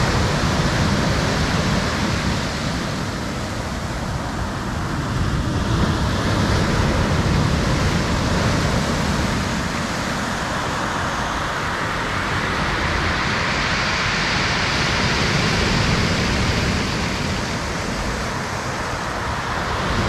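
Sea surf breaking and washing up a pebble beach: a steady rush of waves and foam that swells and eases every few seconds.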